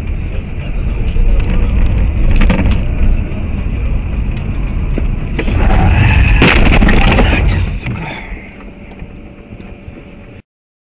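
Dashcam recording inside a moving car: steady road and engine drone, then about five and a half seconds in a loud, noisy collision with an oncoming car lasting about two seconds. The sound dies down and cuts off near the end.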